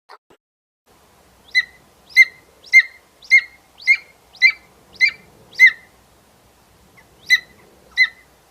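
An animal giving a series of short, sharp chirping calls: eight in a steady run at about two a second, then a pause and two more near the end.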